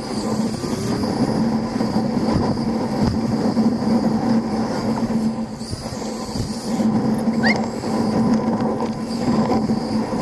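Motorcycle running at a steady pace while being ridden, a constant engine hum under road and wind noise. A brief rising squeak about seven and a half seconds in.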